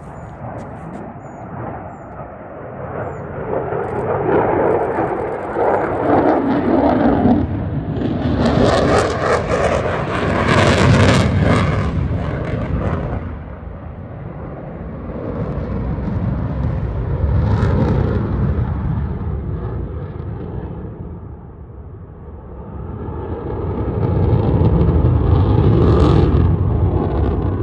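Roar of an RAAF F-35A's single F135 turbofan engine. It is loud and swells and fades three times, with the biggest, hissiest swell in the first half and a strong build again near the end.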